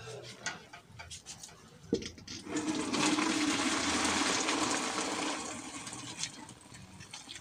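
Hot cooking water and boiled izote flowers poured from a metal pot into a plastic strainer over a bucket, the water draining through. A single sharp knock about two seconds in, then a steady pour from about two and a half seconds that tapers off near the end.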